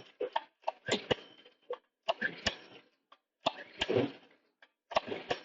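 The recoil pull-starter on a mini bike's small four-stroke engine is yanked several times, about a second or so apart. Each pull is a short rasping whir with sharp clicks as the engine turns over. It does not catch and run, which the owner puts down to stale, dirty gas left in it.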